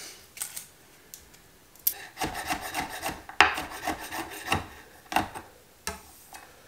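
Chef's knife mincing garlic cloves on a wooden cutting board: a run of quick knocks and scrapes of the blade on the wood, starting about two seconds in.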